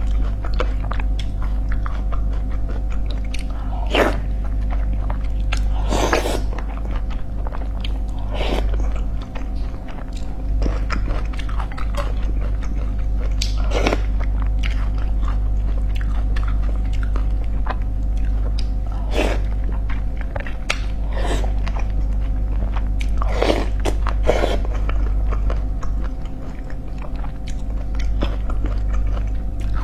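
Close-miked chewing and mouth sounds of someone eating, with a short sharp smack or crunch every few seconds, over a steady low electrical hum.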